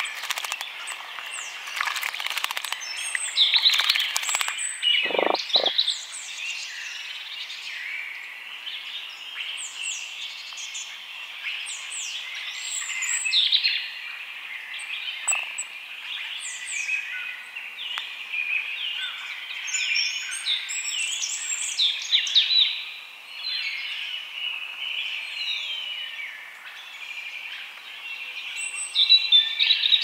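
Many songbirds singing and calling together, with high chirps and quick rising and falling whistles throughout. During the first few seconds there is light splashing from a goldcrest bathing in shallow water, and two short low sounds come around five seconds in.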